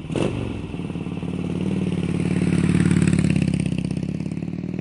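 Motorcycle engine running with a deep, fast pulsing beat. It starts suddenly, grows louder over the first three seconds, then eases slightly near the end.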